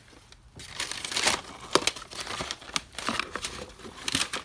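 An Amazon parrot tearing and crunching paper folders with its beak: irregular crinkling and ripping with sharp snaps, starting about half a second in.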